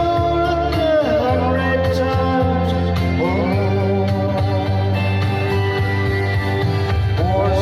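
Instrumental break of a country-folk song: guitar and bass holding steady chords under a lead melody that slides up into its notes.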